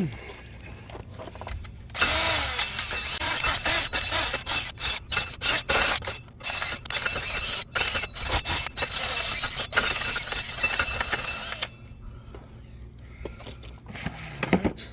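Wire brush scrubbing the rear wheel hub face of a minivan clean, in quick irregular scratching strokes that start about two seconds in and stop a little before the end, to prepare it for a new brake rotor.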